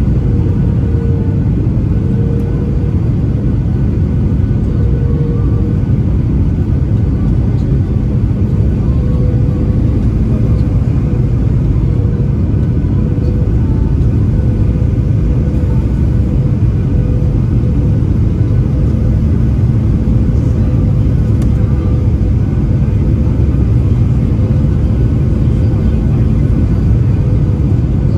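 Cabin noise of a Boeing 737-800 descending on approach, heard from a window seat beside the wing: a loud, steady low rumble of airflow and the CFM56-7B turbofan engines, with a faint steady droning hum on one pitch over it.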